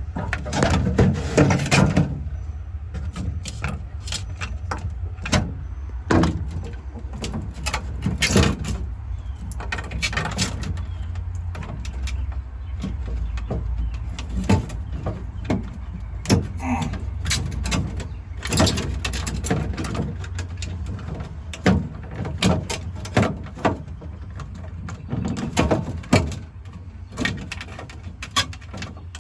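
Hands working on a refrigerator's control board and its wiring: scattered clicks, knocks and rustles at irregular intervals, over a steady low hum.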